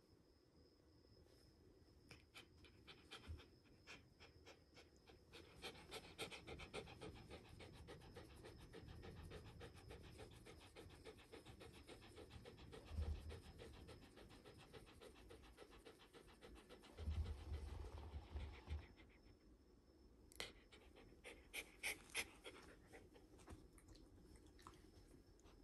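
Shiba Inu panting quickly and faintly, with a couple of soft low knocks and a few light clicks near the end.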